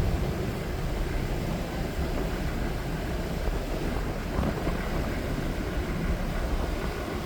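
Mersey ferry underway: a steady low rumble of the ship's engines and water, with some wind on the microphone.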